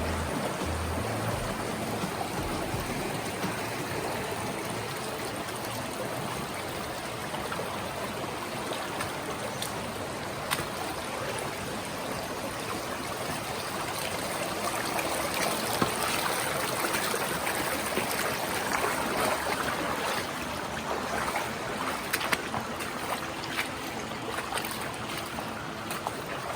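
Shallow river water rushing steadily over rocks, with a few sharp clicks, the loudest about two-thirds of the way in.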